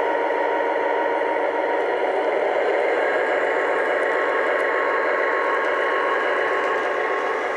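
Lionel O-gauge Alco S4 diesel switcher running on its track: a steady whirring hiss of motor and wheels mixed with the locomotive's onboard diesel engine sounds.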